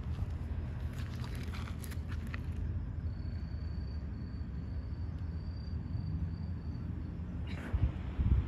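Outdoor background noise: a steady low rumble with a few faint clicks, a thin steady high tone for a few seconds in the middle, and louder low thumps near the end.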